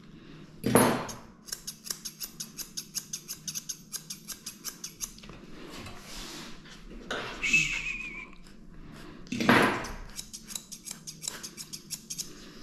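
Grooming scissors snipping rapidly through a Maltese's fur in two runs of about six snips a second. A loud, sudden noise comes near the start and another about nine seconds in, and there is a brief high squeak in between.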